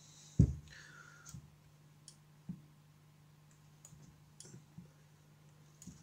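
Plastic clicks of a VW Golf 5 rear-lid opener mechanism being worked by hand to test its repaired switch pushrod: one sharper knock about half a second in, then scattered light clicks. The mechanism works even without its small return spring.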